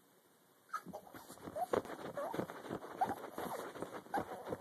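A pug whining in a string of short high-pitched cries that bend up and down, starting about a second in, mixed with short clicking noises.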